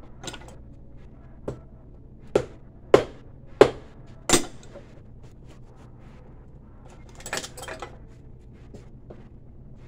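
Sharp knocks on a leather shoe held on a cobbler's iron last: about six strikes over four seconds, roughly one every half-second to second, the loudest in the middle. A brief clatter follows a few seconds later.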